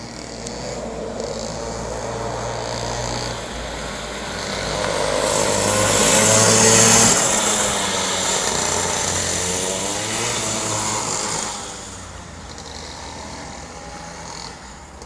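Two-stroke racing kart engine passing on a wet track, its pitch bending as it goes by. It grows louder to a peak about halfway through and fades after, with the hiss of tyres spraying water at the loudest point.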